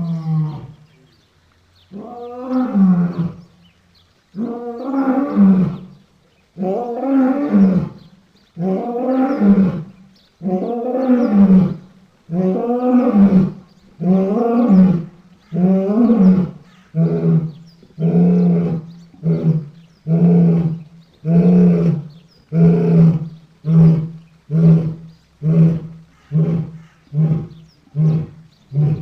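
Sound effect of a big-cat-style roaring bout given to the extinct sabre-toothed marsupial Thylacosmilus. It is a string of long, deep roars about two seconds apart that turn, from about halfway, into shorter grunting calls about one a second.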